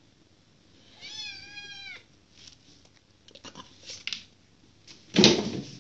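Siamese kitten meowing once: a high call about a second long that rises and then falls slightly. Faint scuffs and rustles follow, then a loud short thump near the end.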